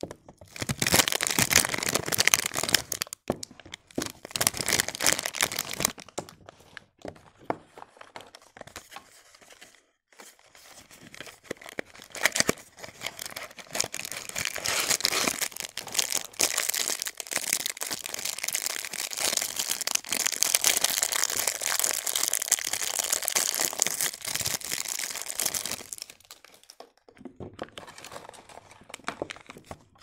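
Plastic and cellophane soap wrappers crinkling as hands handle wrapped bars of soap, in long stretches of crackling with brief lulls between them. Short clicks of hard soap bars knocking together come through the crinkling.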